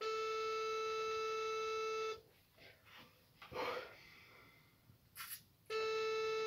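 Telephone ringback tone from a Nokia phone's loudspeaker: a steady beep about two seconds long, then about three and a half seconds of quiet, then a second beep. The call is ringing and has not been answered. A brief soft noise comes in the gap between the beeps.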